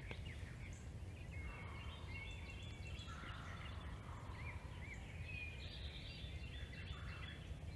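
Faint gobbling of distant wild turkey toms, in two spells, with small birds chirping over a low steady outdoor rumble.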